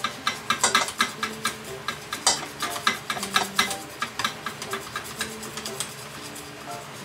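A utensil stirring and mixing in a bowl, knocking against its side in irregular rapid clicks, a few each second. It is likely flour and egg being worked into grated jinenjo yam for suiton dumplings, with light background music underneath.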